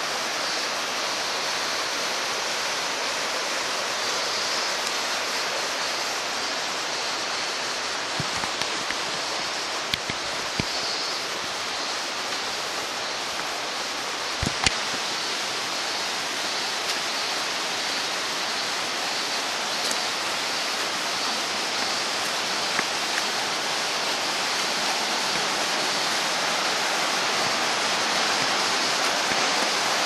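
Steady rush of a rocky mountain stream's flowing water, growing slightly louder near the end, with a few faint knocks.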